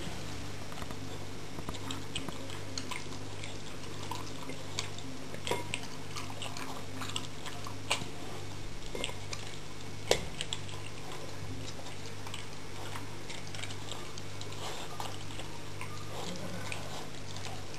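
Beagle eating from a plate on the floor: wet licking and chewing with small clicks of teeth against the plate, and a few sharper knocks, the loudest about ten seconds in. A steady low hum runs underneath.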